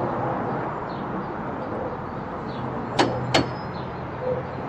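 Two sharp hammer-on-chisel blows against a door lock, about a third of a second apart, with a brief metallic ring after the second.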